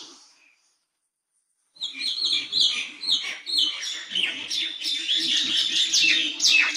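Birds chirping in a dense chatter of quick, high, downward-sweeping calls that overlap one another. The calls fade out right at the start, leave about a second of silence, then start up again and keep going.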